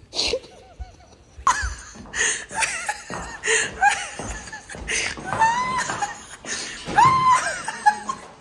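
Laughter, in a string of short bursts with rising and falling pitch.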